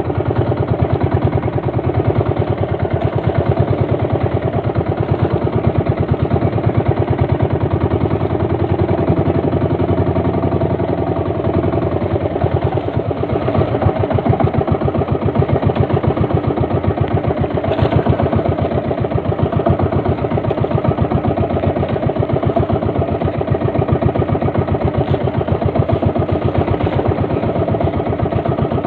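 Small boat engine running steadily at a constant speed, with a rapid, even beat.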